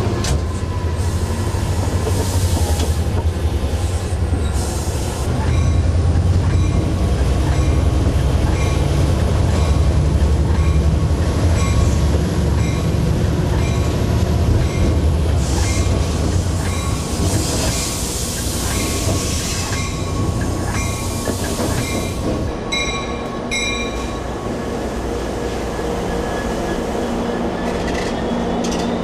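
EMD F59PH diesel locomotive rolling slowly through station trackwork, heard from the cab. Its engine and wheels give a heavy low rumble, and the wheels click steadily over rail joints with a thin squeal from the wheels. The rumble eases a little after about three quarters of the way through.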